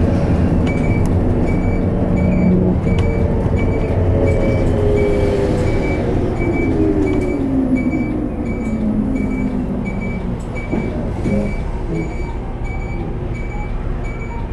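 Inside an Isuzu Erga Hybrid city bus on the move: steady road and drivetrain rumble, with a whine that slides down in pitch over several seconds as the bus slows. A short high tick repeats evenly, about three every two seconds.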